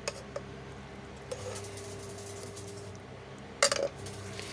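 Tableware sounds: a few light clicks of a serving spoon against a plate, then a louder short clatter near the end, over a steady low hum.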